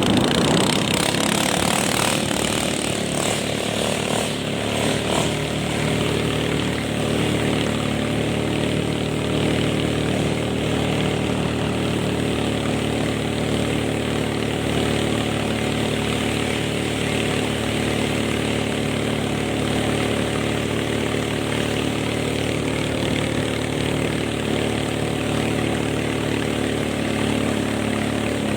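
Small boat's engine running steadily at speed, its pitch holding level throughout, over a constant rush of noise.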